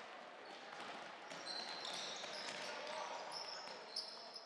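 Basketball being played on a hardwood gym court: sneakers squeak in short, high chirps as players run, and the ball bounces, with one sharp bounce near the end. Voices murmur faintly in the echoing gym.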